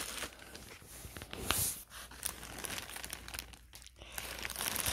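Plastic wrapping crinkling and rustling in irregular bursts, with a few light clicks and knocks from handling the pot.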